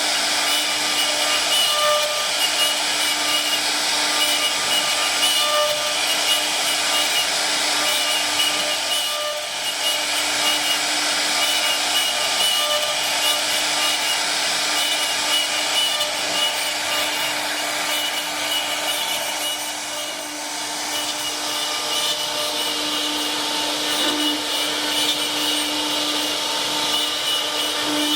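CNC machine spindle running and cutting: a steady whine over a rough cutting noise, easing briefly twice.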